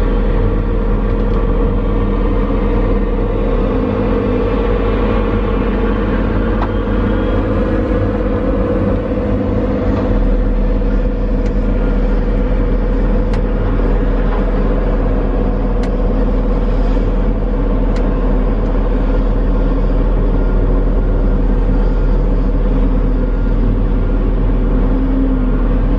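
Diesel engine of a John Deere logging machine running steadily at constant speed, a deep even rumble heard from inside its cab.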